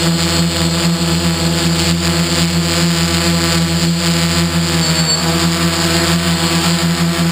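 Hexacopter's six Tiger MT2814 770kv brushless motors spinning 11-inch carbon propellers in flight: a steady, loud drone with an even pitch, heard from the camera on the frame. The pitch sags briefly about five seconds in.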